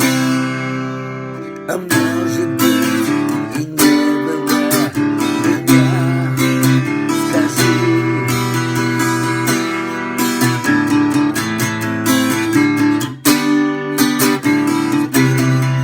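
Acoustic guitar music with strummed chords and a steady rhythm.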